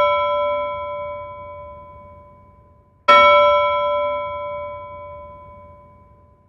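A bell struck twice, each stroke ringing with several clear tones and dying away slowly. The first is already fading, and the second is struck about three seconds in.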